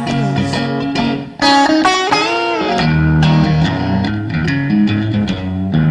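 Blues-rock music: an electric guitar playing a lead line with bent notes over a bass line, with no singing.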